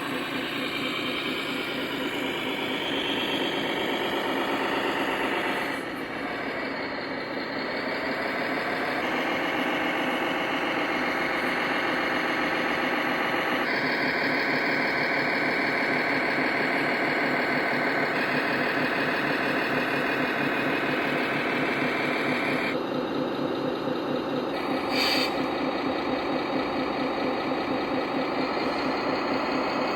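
Simulated diesel engine sound from the electronic sound modules of radio-controlled model tractors and trucks, idling and running. The sound changes abruptly several times.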